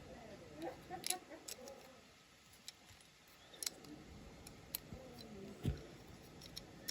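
Light, irregular clicks and taps of small plastic and metal parts of a diecast model car being handled on a workbench, with a soft knock about two thirds of the way through.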